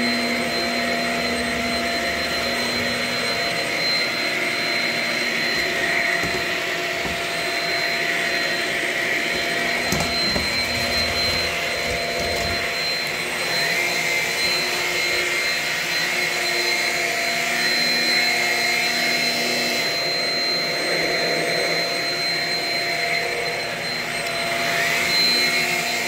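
Shark Rocket self-cleaning stick vacuum running steadily, its motor giving a constant high whine over a rushing airflow as it is pushed along the floor.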